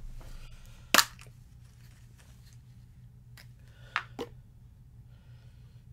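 Plastic toy capsule snapping open with one sharp crack about a second in, followed by lighter plastic clicks near four seconds in as the toy is handled.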